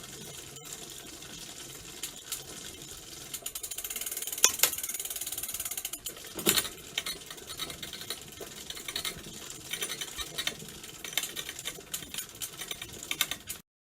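Bicycle chain rubbing as it turns, a fast continuous ticking rattle of metal on metal. It grows louder about three seconds in, with two sharper clacks in the middle, then settles and stops just before the end.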